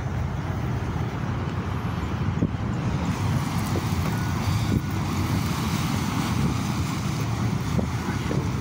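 Wind buffeting the phone's microphone in a steady low rumble, over the wash of surf breaking against the rocks.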